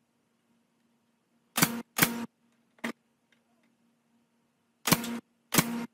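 Pneumatic nail gun firing nails into the joints of a wooden frame: five sharp shots, each with a brief hiss of air, in two close pairs and a lighter single between them. A faint steady low hum runs underneath.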